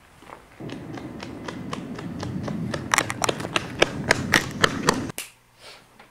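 Running footsteps slapping on pavement, about four a second, growing louder as they come close, over a low rumble. The sound cuts off abruptly about five seconds in.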